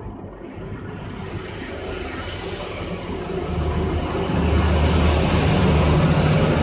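A motor vehicle engine running steadily, growing louder about four seconds in.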